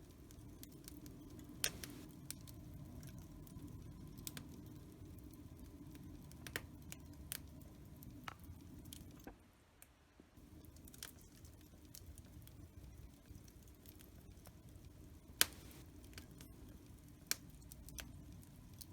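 Wood fire in a fireplace crackling: irregular sharp pops and snaps over a low, steady rumble of burning, with two louder pops. The sound drops out for about a second midway.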